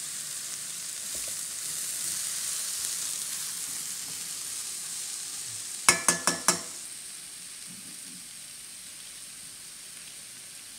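Steady sizzle of sliced mushrooms sautéing in a frying pan. About six seconds in come four quick, ringing metal clanks as the pan is worked.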